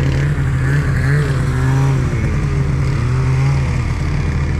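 Snowmobile engines running: a steady low engine drone, with a second engine note whose pitch rises and falls from about a second in until shortly before the end.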